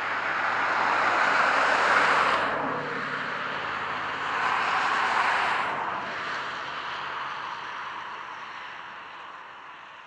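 Road traffic passing: tyre and engine noise of two vehicles going by in turn, the first loudest about two seconds in and the second around five seconds in, then fading away.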